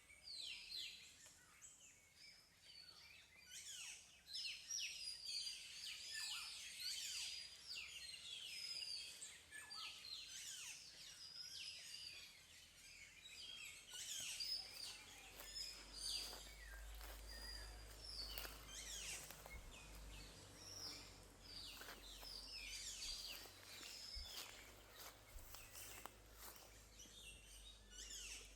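Forest birds singing and chirping: a dense, continuous run of short, high, downward-sweeping notes from several birds. A faint low hum comes in about halfway through.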